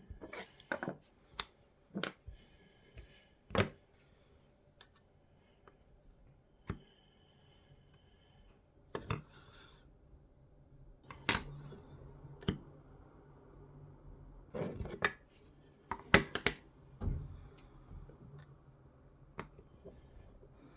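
Scattered sharp clicks and taps of small parts and hand tools being handled on a workbench, the loudest about 11 and 16 seconds in, over a faint low hum.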